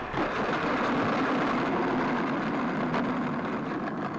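RC model plane's landing-gear wheels rolling and scraping over rough pavement on a dead-stick rollout after its motor burned out: a steady rolling noise that fades near the end as the plane slows.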